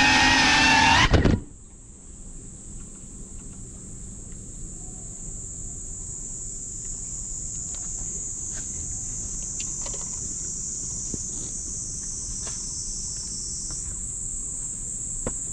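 Music cuts off abruptly about a second in. Then a steady, high-pitched chorus of insects shrills on over a faint low rumble, with a few soft clicks and knocks near the end.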